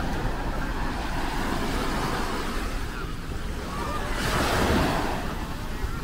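Small Mediterranean waves breaking and washing up the sand at the shoreline, with a louder wash about four seconds in. Wind rumbles on the microphone.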